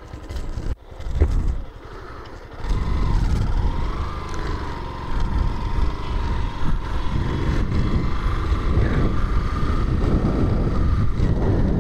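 Motorcycle under way, its engine running with low wind rumble on the microphone. The sound is uneven for the first couple of seconds, then settles into a steady drone with a faint whine that rises slowly.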